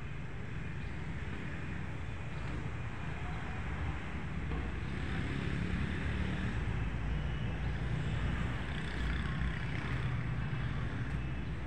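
Steady road traffic noise, a continuous rumble of passing vehicles that swells somewhat through the middle.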